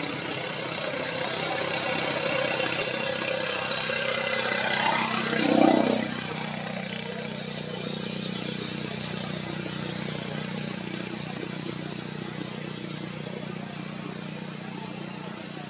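Steady motor-vehicle engine noise, with one vehicle passing about five to six seconds in, its pitch falling as it goes by.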